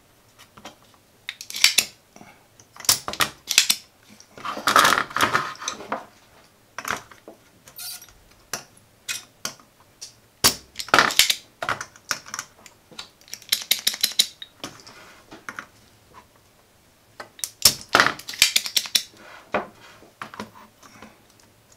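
Spring-loaded desoldering pump (solder sucker) being cocked and fired again and again at the solder joints of an audio jack: sharp snaps and clicks in clusters every second or two, one longer rattling cluster a few seconds in.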